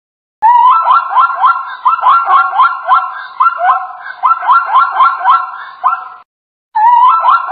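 Plains zebra calling: a fast run of short rising yelps, about three to four a second, in two bouts with a brief pause about six seconds in.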